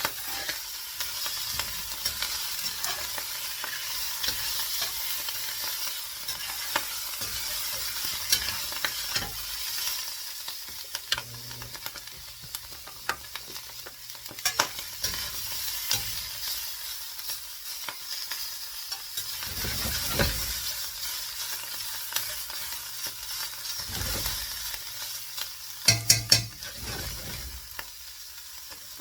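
Omelette with potato, mushroom, onion and ham frying in a pan, sizzling steadily. There are scattered sharp clicks, and a quick run of louder clicks near the end.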